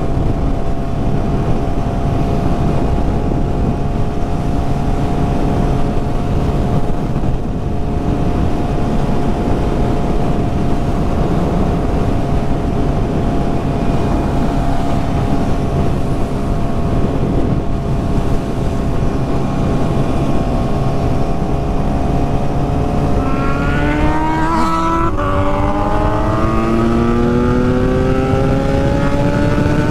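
Kawasaki Z900's inline-four engine running at a steady cruise over rushing noise, then about 23 seconds in accelerating hard with the pitch rising, breaking briefly about two seconds later at a gearshift, and rising again through the next gear.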